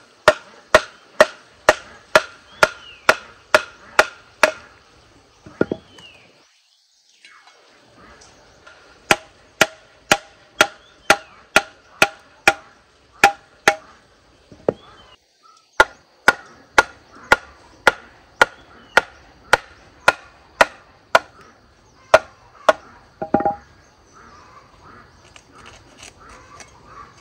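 Steady chopping with a blade on wood, about three sharp strokes a second, each a hard knock with a brief ring. The chopping stops twice for a moment.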